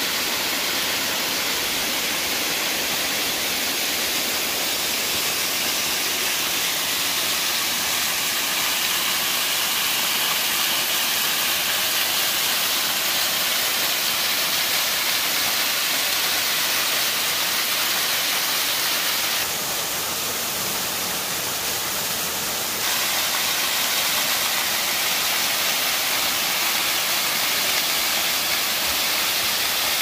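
Small mountain waterfall spilling over sloping rock ledges: a steady, even rush of falling and splashing water, dipping slightly for a few seconds about two-thirds of the way through.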